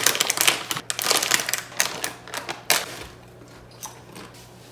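Crinkling and rustling of a sealed snack-chip bag being struggled open by hand, dense crackling for about three seconds, then dying down to a few small clicks.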